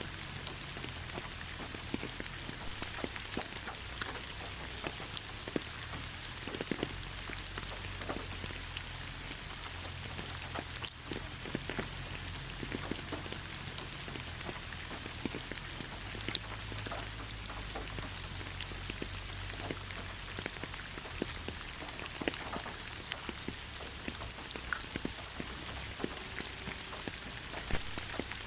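Steady rainfall: a continuous hiss with many individual drops ticking on a surface, over a low rumble.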